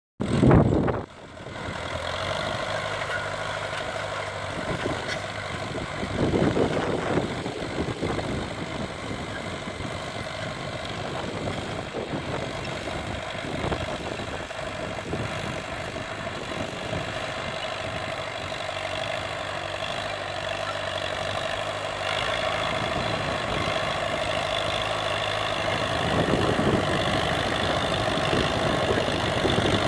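Allis-Chalmers C tractor's four-cylinder engine running steadily under load while pulling a disc harrow. There is a brief loud noise in the first second, and the engine gets louder for a moment about six seconds in and again near the end.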